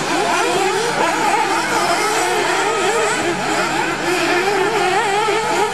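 Several 1/8-scale nitro RC off-road buggy engines revving up and down at once, their high whines rising and falling over each other as the buggies race around the track.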